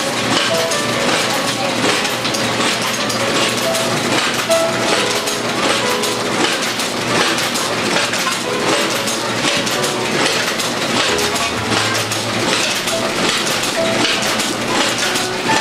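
Taffy cutting-and-wrapping machine running: a fast, even mechanical clatter of many small clicks as its rollers feed the taffy rope and the mechanism cuts and wraps the pieces.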